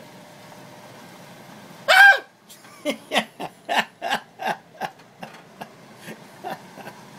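A single loud, high-pitched startled yelp about two seconds in, at a live lobster thrust close, then a run of laughter, short bursts about three a second that fade away.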